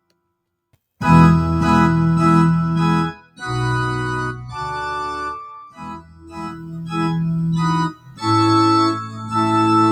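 Electronic keyboard playing a sequence of held chords, each lasting one to two seconds with short breaks between. It starts about a second in, after a moment of silence.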